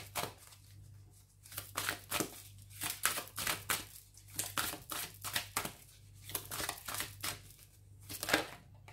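A deck of oracle cards shuffled by hand, the cards slapping and rustling against each other in quick repeated bursts.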